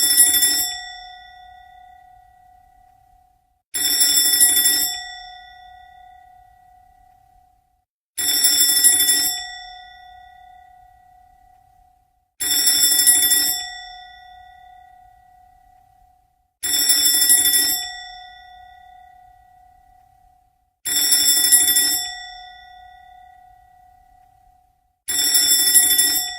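Alarm clock ringing as a looped sound effect: seven bell-like bursts about a second long, repeating roughly every four seconds, each leaving a fading ring.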